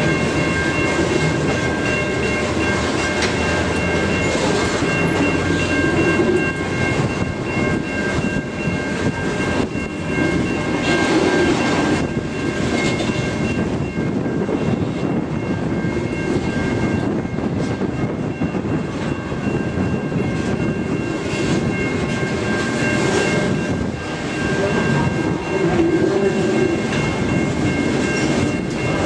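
Loaded grain hopper wagons rolling past on the rails, a continuous rumble with wheels clicking over the track. A steady high ringing tone sits over the rumble.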